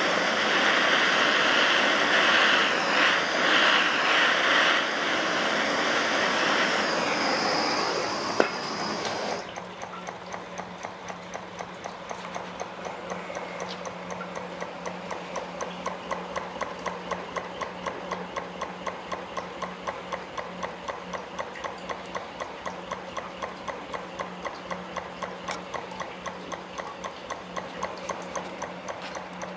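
Home-built gamma-type Stirling engine with a yoke drive running while a hand-held gas torch hisses against its hot cylinder; the torch cuts off about nine seconds in. The engine runs on, clicking evenly about three times a second over a steady low hum.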